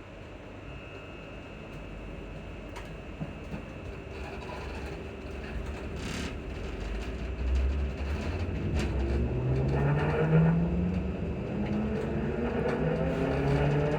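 Class 334 electric multiple unit pulling away, heard from inside the carriage. A low rumble and a few clicks and knocks build as a whine of several tones rises steadily in pitch from about halfway through, as the traction motors accelerate the train.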